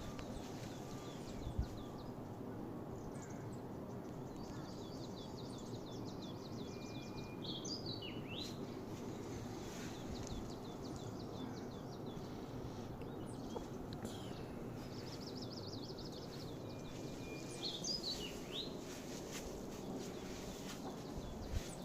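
Songbird singing: a rapid high trill ending in a few slurred notes, given twice about ten seconds apart, with scattered chirps between, over a steady low background rumble.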